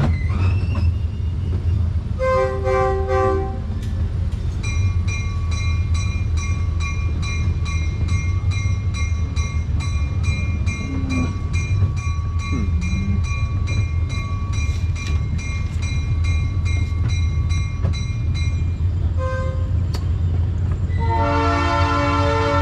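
Train rumbling along the track while its whistle sounds: a short blast a couple of seconds in, a bell ringing about three strikes a second for some fifteen seconds, a brief toot, then a long whistle blast near the end.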